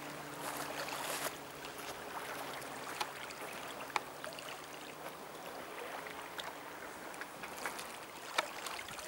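Calm sea washing gently on a pebbly shore: a soft, steady wash of surf, with a few faint clicks.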